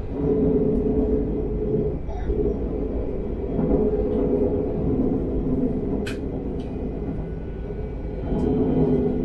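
Talent 3 electric multiple unit running along the track: a steady rumble of wheels on rail with a motor hum that swells and eases, and a few sharp clicks, the sharpest about six seconds in.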